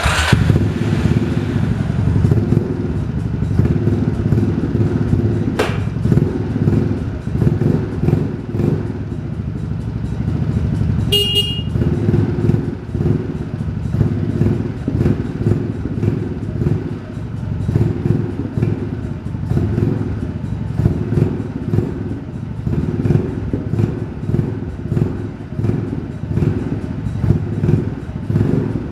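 Yamaha Majesty C 250 cc single-cylinder scooter engine running, its note rising and falling over and over. About eleven seconds in, a short high-pitched beep sounds over it.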